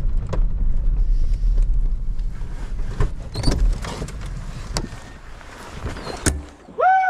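Pickup truck engine running, with scattered knocks and rattles; the low rumble cuts off with a sharp click about six seconds in. Near the end a dog gives one long howl that rises and falls in pitch.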